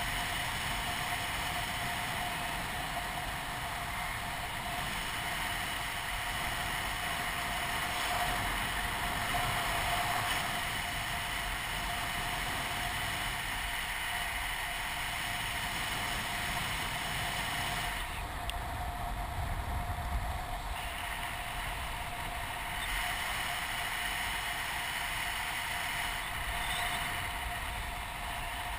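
Steady noise of powered-paraglider flight: a constant engine-like drone with wind on the microphone, holding even, the higher hiss dipping briefly about two-thirds of the way through.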